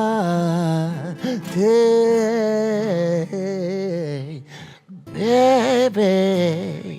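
A man singing long, wavering, drawn-out notes of a romantic song without clear words, in about three phrases with a short break near the middle and a brief gap about four and a half seconds in.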